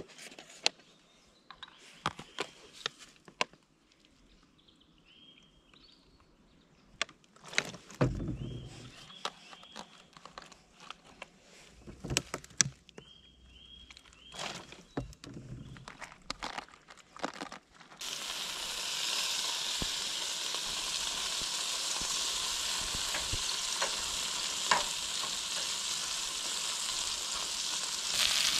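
Scattered sharp clicks and knocks, then about two-thirds of the way in food starts sizzling in a hot pan: a steady frying hiss that begins suddenly and grows louder near the end.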